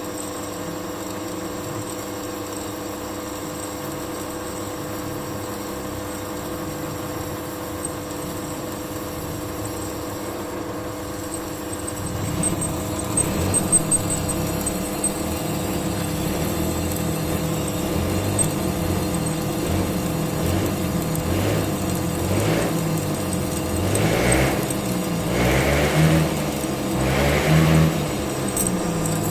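Electric drill motor running with a steady hum, drilling a steel leaf spring; from about twelve seconds in it grows louder and more uneven, its low tone wavering.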